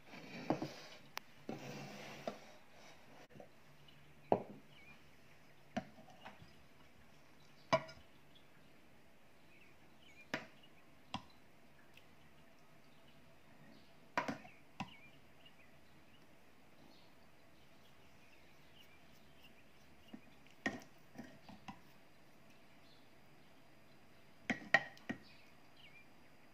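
A metal serving spoon clinking and scraping against a ceramic bowl and a glass plate as curry sauce is ladled over rice, with sharp clinks every one to a few seconds, sometimes two or three in quick succession. In the first couple of seconds, a ceramic pot lid scrapes and knocks as it is lifted off.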